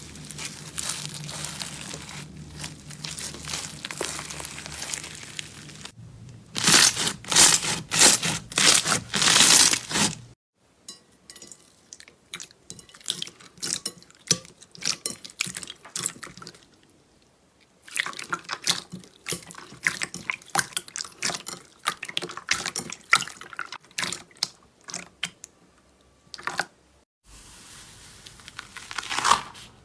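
Slime being squeezed, stretched and poked by hand, giving runs of wet clicks, pops and crackles. It comes in several separate clips that start and stop abruptly, some denser and louder than others.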